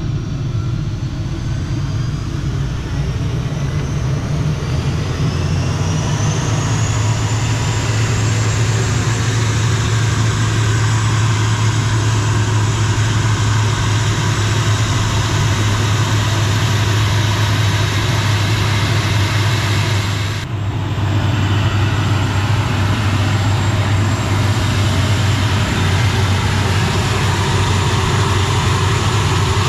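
ATR 72-500's Pratt & Whitney Canada PW127 turboprop engine spooling up: a high turbine whine rises over the first seven seconds or so, then holds steady over a loud, steady low drone. The sound dips briefly about twenty seconds in, then carries on.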